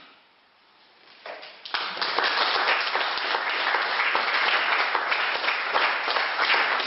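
Audience applauding, starting about two seconds in after a brief hush and going on steadily.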